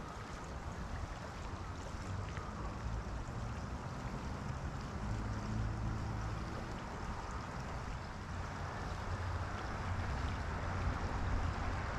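Steady rush of a flowing river, with a low rumble underneath.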